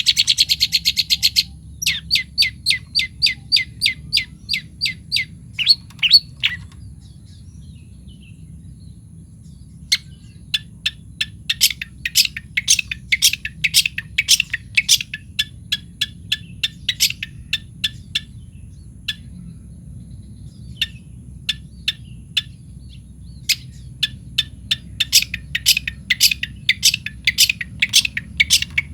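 Long-tailed shrike (cendet) calling in series of short, harsh, rapidly repeated notes, several a second. The series break off twice into pauses of a few seconds, over a steady low background hum.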